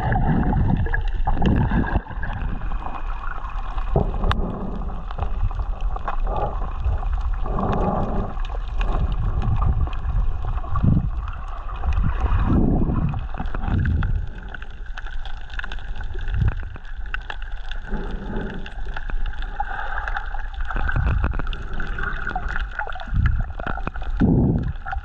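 Water sloshing and gurgling in irregular low surges a second or two apart.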